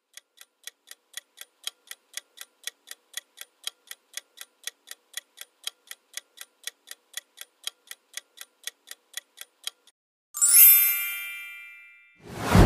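Quiz countdown-timer sound effect ticking evenly at about four ticks a second for ten seconds. A bright chime then rings out as the correct answer is revealed, followed near the end by a loud whoosh as the screen transition wipes across.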